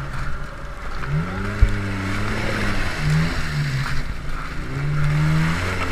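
Suzuki Samurai engine revving up and falling back several times as the 4x4 churns through a mud hole, tyres spinning and throwing mud, with one sharp thump about a second and a half in.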